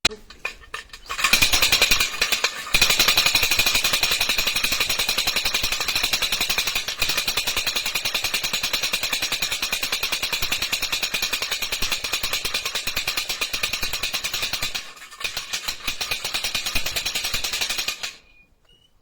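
A troccola, the wooden Holy Week rattle whose noise announces the coming of the Cerca procession, clattering in a rapid, unbroken rattle. It starts about a second in, falters briefly near the end and then stops.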